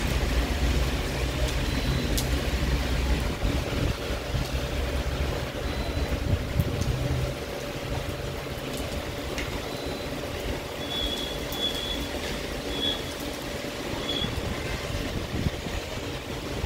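Heavy monsoon rain falling with a steady hiss, mixed with low rumbling traffic on the wet road that eases about halfway through. A few short high chirps come near the end.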